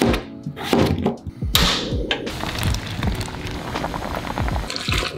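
A knife chopping potato chunks on a cutting board, a few sharp knocks in the first two seconds. Then potato chunks simmering in a pot of boiling water, a steady bubbling.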